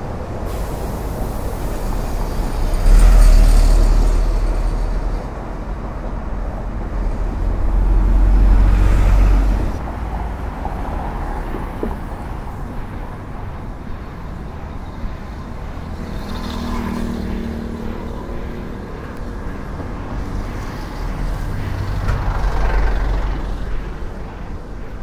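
Road traffic driving past close by: cars and trucks on the overpass, with heavy low rumbles swelling up as vehicles pass, loudest about three seconds in and again around eight to nine seconds.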